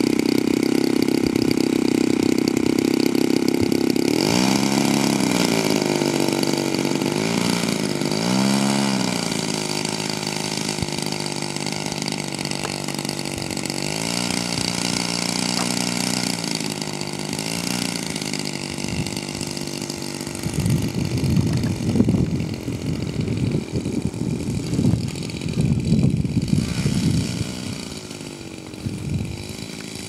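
DLE 35cc single-cylinder two-stroke petrol engine on a large RC Spitfire model. It runs at high throttle, drops back to a low idle about four seconds in, then is blipped up and down a few times as the plane taxis. In the second half, irregular rumbling gusts of wind hit the microphone over the engine.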